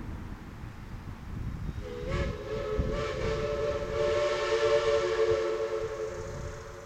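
East Broad Top 2-8-2 No.15's chime steam whistle sounding one long blast, a chord of several notes that comes in about two seconds in, swells, and eases off near the end, over a low rumble.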